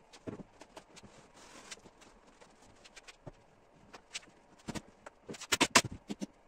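Pneumatic upholstery staple gun firing staples into a wooden recliner chair frame: a few single shots, then a quick run of about six shots near the end, among softer knocks from handling the chair.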